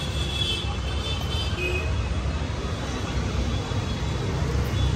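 Steady low rumble of street traffic and background noise.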